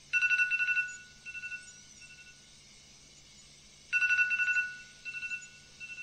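iPhone alarm ringing: a quick run of high beeps lasting under a second, then fainter, fading beeps. The pattern starts again about four seconds in.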